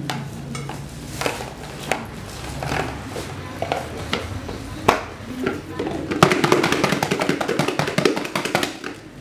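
Eggs knocking against a plastic bowl as they are set in and the snap-on lid is pressed down. From about six seconds in the lidded bowl is shaken hard, the eggs rattling against the plastic in a fast run of knocks.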